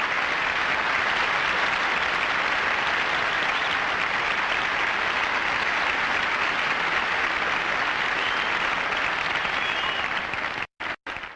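Concert audience applauding steadily at the end of the song. The applause breaks off suddenly near the end, with two brief gaps.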